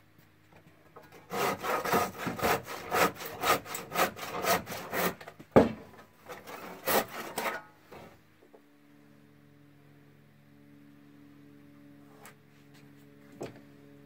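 Handsaw cutting through a wooden timber with quick strokes, about three a second, for some six seconds, with one sharp knock partway through. Then the sawing stops and only a faint steady hum is left.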